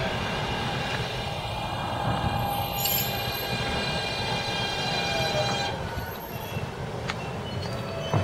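Subway train arriving and braking to a stop, with the electric whine of its propulsion carrying several high tones. A tone falls in pitch and the running noise eases off about six seconds in as the train stops.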